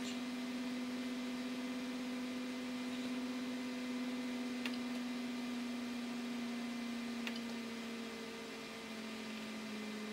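Steady electrical hum from a laser-equipped 3D printer standing powered but idle: one low tone with overtones that shifts slightly in pitch near the end. A few faint clicks come through it.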